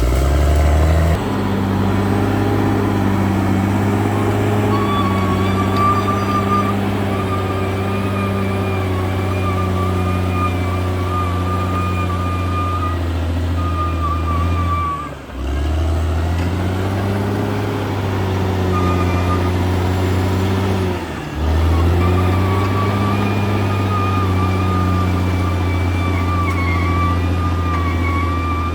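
CAT D6R XL bulldozer's diesel engine running steadily at working speed, with a wavering high whine over the engine note. The sound dips briefly twice, about halfway through and about two-thirds of the way through.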